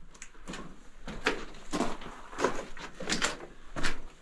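Footsteps crunching on the rocky, gritty floor of a mine drift, a steady walking pace of about six steps in four seconds, with a slight echo off the rock walls.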